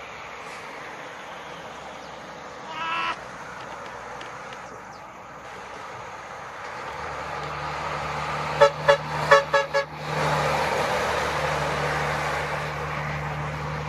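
A vehicle horn gives one short toot, then a quick run of about five short toots a few seconds later. Around them, a heavy truck's engine runs with a steady low hum and road noise that grows loud as it passes close by.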